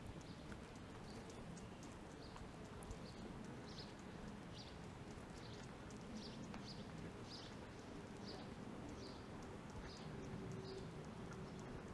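Light footsteps at a steady walking pace, a little under two steps a second, over a faint low background hum.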